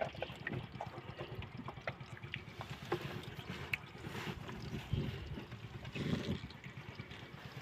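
Water sloshing and splashing around a small boat, with scattered knocks and clicks. There are short splashes about four, five and six seconds in.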